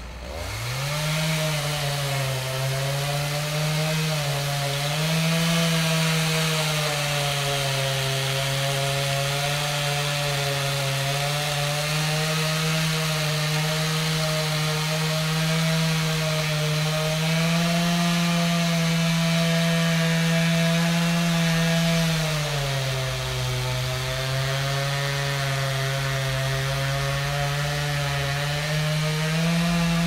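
Chainsaw revving up from a low idle in the first second, then running at high speed with its pitch wavering up and down. It drops to a lower note for several seconds past the two-thirds mark and climbs back up near the end.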